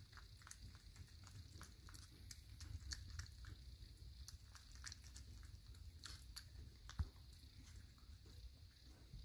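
White Persian cat licking a paste treat from a squeeze pouch: faint, irregular clicks of its tongue, several a second, with one sharper click about seven seconds in.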